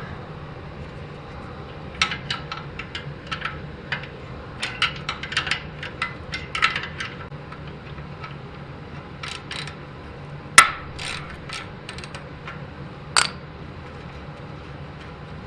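Metallic clinks and taps of hand tools on motorcycle exhaust hardware as clamps and bolts are worked loose, in irregular clusters. One sharp, much louder clank comes about halfway through and another a little later.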